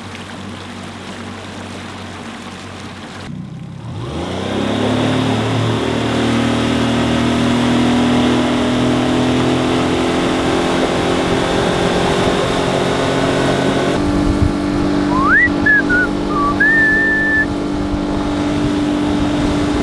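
Mercury tiller outboard motor running, briefly cut, then throttling up about four seconds in and holding a steady higher note at speed, with water rushing past the hull.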